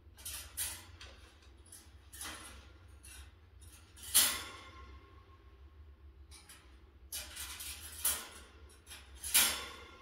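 Metal wire parrot cage rattling and clinking as an African grey parrot moves about in it, in a series of separate short rattles. The loudest come about four seconds in and near the end.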